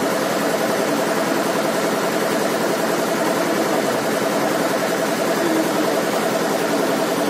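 Steady mechanical drone with one constant hum running through it, unchanging throughout.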